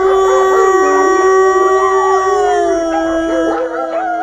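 A man howls through cupped hands, imitating a she-wolf's calming howl meant to quiet the pack. It is one long, steady note that drops a little in pitch about three seconds in. Captive wolves howl along at the same time, their pitch wavering up and down.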